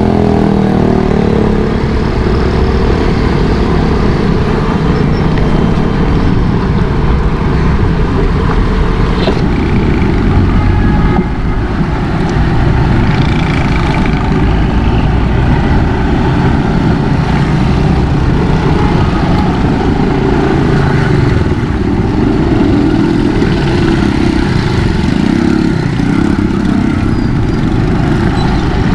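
Motorcycle running while being ridden, under a heavy, continuous low rumble on the microphone.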